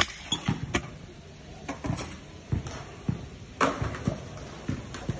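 Stunt scooter on concrete: irregular sharp clacks and low thuds as the deck and wheels hit and roll over the ground. A loud clack comes right at the start and another strong one about three and a half seconds in.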